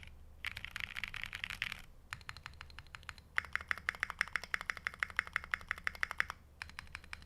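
SingaKBD Unikorn R2.2 mechanical keyboard with Holy Chickies tactile frankenswitches (MX Blue housings, Halo True stems), SA profile keycaps and an aluminium plate, typed on fast in bursts of rapid keystrokes. The hardest, densest run of keystrokes comes in the middle, with brief pauses between bursts.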